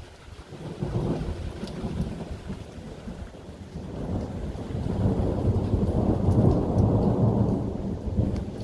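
Rolling thunder rumbling over falling rain, swelling from about a second in to its loudest near the end, with faint raindrop ticks above it.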